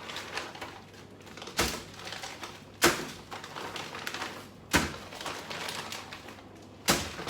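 Kitchen handling sounds: four sharp knocks, each about two seconds apart, with rustling in between.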